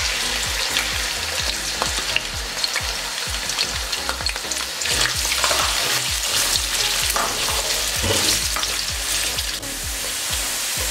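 Sliced onions sizzling and crackling in hot oil in a wok while a silicone spatula stirs them. They are being fried until golden.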